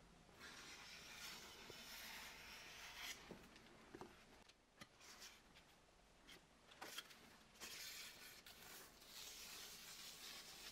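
Faint rasping of masking tape being peeled up off the floor beside a freshly glued profile rail, in two stretches with a few light clicks between.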